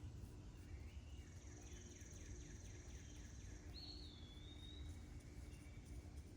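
Faint birdsong: a run of quick repeated notes under a high thin trill, then a whistled note that slides down in pitch, over a low steady hum.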